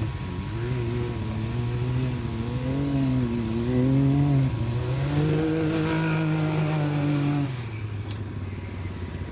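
UTV engine revving up and down repeatedly, then held at a higher, steady pitch for a couple of seconds before dropping away about seven and a half seconds in.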